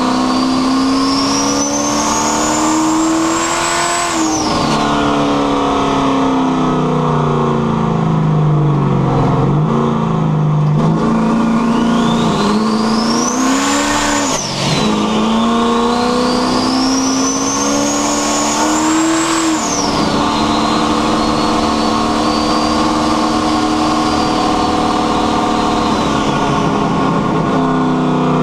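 Car engine with a rear-mounted turbocharger accelerating hard, the turbo whine climbing in pitch with the revs and falling sharply at each shift or lift, about 4, 14 and 19 seconds in. Afterwards it settles to a steadier cruise and the whine fades away.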